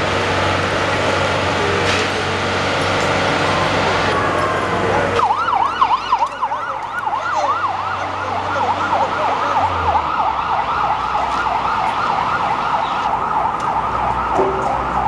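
Police siren on a Carabineros water-cannon truck, starting about five seconds in and going in a fast yelp of about four up-and-down wails a second. Before it starts there is a steady rushing noise with a low engine hum.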